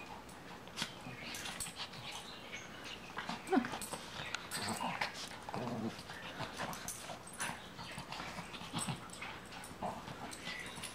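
A Maltese-poodle mix and a Shih-Tzu-Pekingese mix play-wrestling on a cushioned dog bed: irregular scuffling, rustling and clicking throughout, with a few brief growls and whimpers.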